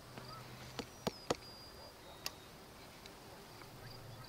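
Insects chirping in a steady, pulsing high rhythm, with a few sharp knocks about a second in and again a little after two seconds.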